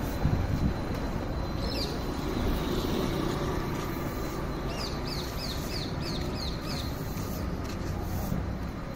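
Steady low street background noise, with a small bird calling over it: one high chirp about two seconds in, then a quick run of about seven falling chirps, roughly three a second, between about five and seven seconds in.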